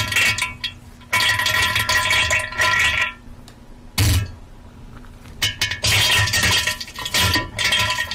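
Irregular loud bursts of crackling, splattering noise, meant as diarrhea sounds: two long bursts and a short sharp one about four seconds in.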